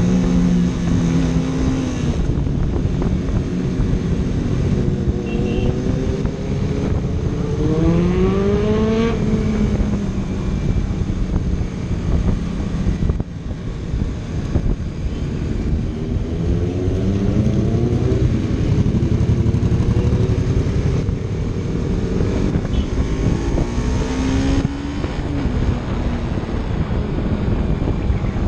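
Superbike engines accelerating, their pitch rising in several sweeps (a few seconds in, again past the middle, and near the end) over a steady engine din.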